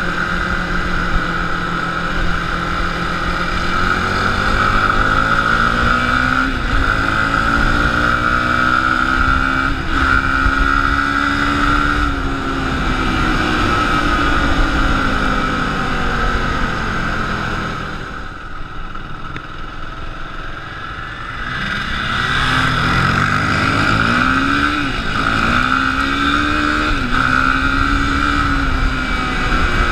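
Sport quad's single-cylinder four-stroke engine pulling hard under way, revving up through the gears, its pitch climbing and dropping back at each shift. About two-thirds of the way through, the rider backs off and it quietens for a few seconds, then it accelerates and shifts up again.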